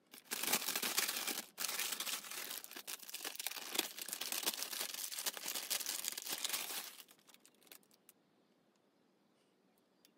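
Thin printed tissue paper crinkling and rustling as it is handled and spread out, with a brief break about a second and a half in, dying away to a few light crackles.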